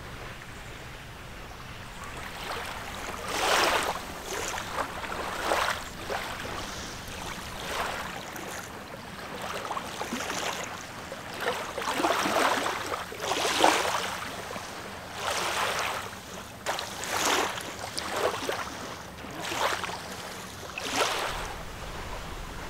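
Small waves washing in on a shore, a rushing swell coming and going about every one and a half to two seconds over a faint steady background hiss.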